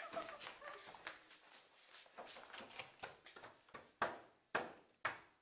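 Three sharp knocks about half a second apart in the second half, each dying away quickly, after faint indistinct sounds.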